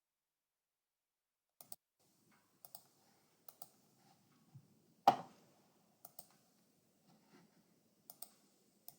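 Computer mouse clicks, mostly in quick press-and-release pairs, with one louder click about five seconds in, while the audio input is being switched; the first second and a half is dead silent.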